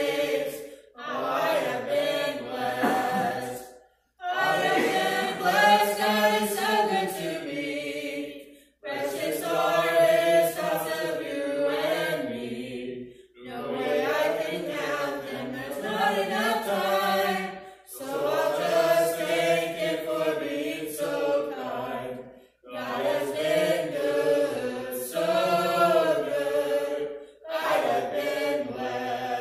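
A small group of men and women singing together unaccompanied, in phrases of about four to five seconds with brief pauses for breath between them.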